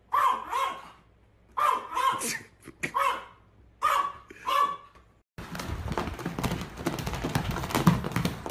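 A pet animal giving short bark-like calls, mostly in pairs, four times over about five seconds. After a sudden cut, a dense clattering noise with many clicks follows.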